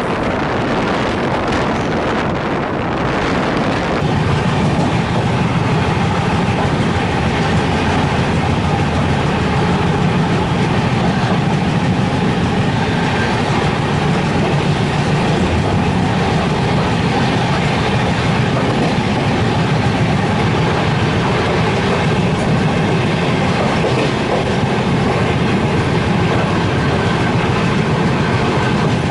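Rajdhani Express coaches running at speed, heard from aboard: a steady rumble of wheels on the rails, a little louder from about four seconds in.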